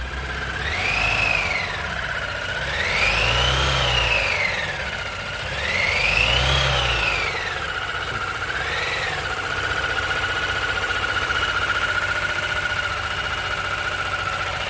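Mazda CX-7 engine blipped three times and once more briefly, a high whistle rising and falling in pitch with each rev, then holding as a steady whine at idle. The owner is certain the whistle comes from the balance shafts after an engine rebuild, not from the turbo.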